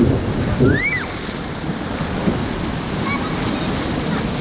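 Steady rush of whitewater river with wind buffeting the microphone. A short high call rises and falls about a second in.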